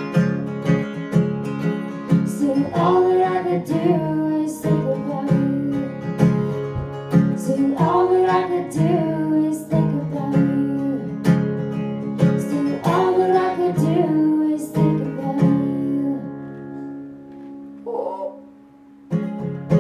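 Acoustic guitar strummed in a steady rhythm to close a song, with singing over it. About 15 seconds in the strumming stops and the last chord rings and fades, with a couple of short strums near the end.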